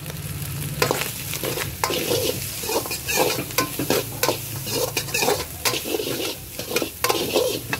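A steel ladle scrapes and clanks against a large metal kadhai as rice with moong and vegetables is stirred and tossed in hot oil, with sharp strikes coming from about a second in. A steady sizzle of frying runs under the strikes.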